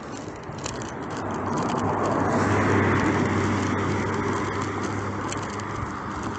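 A motor vehicle passing close by: its tyre and engine noise swells to a peak about three seconds in, then slowly fades, with a steady low engine hum underneath.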